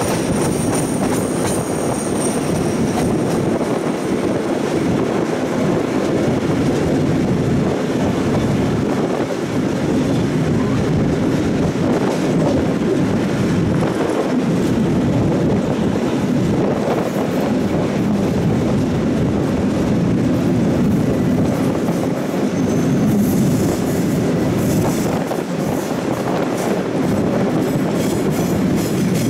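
Victorian Railways Tait 'Red Rattler' electric suburban train running along, heard from an open window on board: a steady rumble of wheels on the track. A thin high squeal sounds in the first few seconds, and scattered high clicks and squeaks come from about 23 to 28 seconds in.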